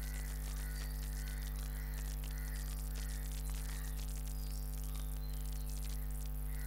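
Steady mains hum with a stack of even overtones, at a constant level, with faint scattered ticks over it.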